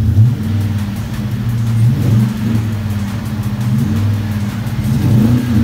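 2006 Chevy Silverado 5.3 L V8 running through a true dual exhaust with stainless straight-through mufflers, a loud low-pitched exhaust note at idle. The pitch lifts briefly about four times, every second or two, with light throttle blips.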